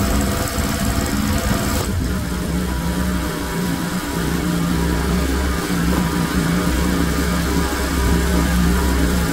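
Gas pressure washer running steadily, its small engine humming low. The hiss of the water jet hitting the rug and concrete cuts off about two seconds in as the spray stops, and the engine keeps running on its own.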